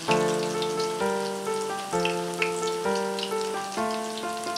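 Background music with held chords changing about once a second, over the crackling and popping of potato latkes shallow-frying in hot oil.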